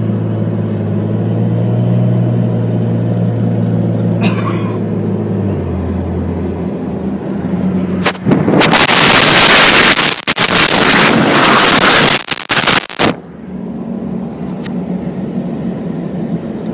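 Helicopter overhead, its rotor and turbine giving a steady low drone for the first five seconds or so. About eight seconds in, a loud rush of wind on the microphone from the moving vehicle takes over for about five seconds, cutting out in short gaps, before a quieter steady drone returns.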